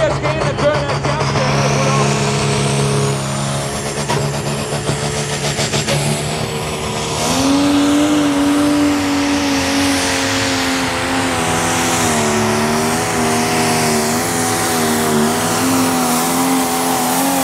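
Pro Stock pulling tractor's turbocharged diesel engine running hard under load against the sled. A thin high whine rises in the first two seconds. The engine pitch steps up about seven seconds in and holds high, wavering, to the end.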